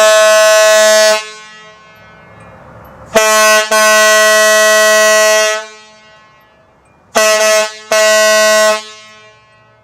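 Homemade air horn built from PVC pipe with an aluminum-flashing diaphragm, sounding four really loud blasts of one steady pitch. The first lasts about a second and a half; the second runs about two and a half seconds with a brief catch near its start; the last two are shorter and close together.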